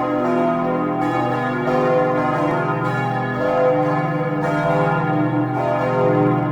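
A peal of four large church bells swinging and ringing together. Their strokes overlap into a continuous, unbroken clangour of several pitches, each stroke's hum ringing on beneath the next.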